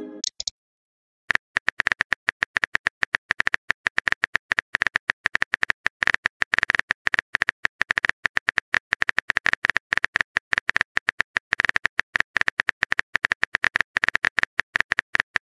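Rapid, irregular clicking of a phone keyboard typing sound effect, starting about a second in and running on as a chat message is typed out. Right at the start, the tail of a short pitched message-sent chime.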